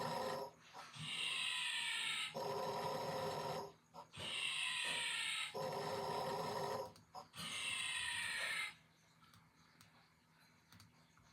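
Snoring in three snores, each a buzzing breath and a hissy breath that slides down in pitch. The snoring stops about nine seconds in.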